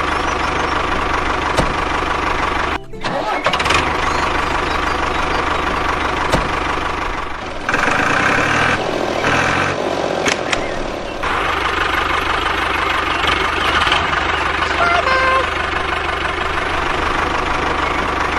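An engine running steadily, with a brief dropout about three seconds in and a change in its sound from about eight to eleven seconds.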